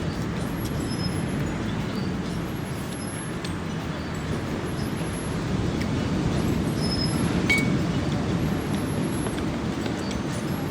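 Steady low rumbling background noise, with a few faint, brief high clinks now and then.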